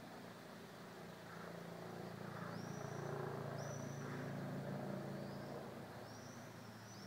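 A motor vehicle passing, its low engine hum swelling about two seconds in and fading away after five seconds. Short high chirps, a small bird's calls, repeat about once a second through the second half.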